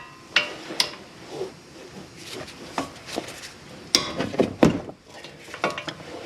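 Steel hand tools clinking and clattering against metal: a series of separate sharp clinks with short ringing, the loudest cluster about four to five seconds in.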